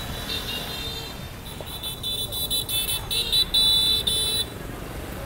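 Shrill, high-pitched warning signal sounding in a rapid string of short blasts over the low running of cars driving across the railway crossing. It starts about a second and a half in and cuts off about a second before the end.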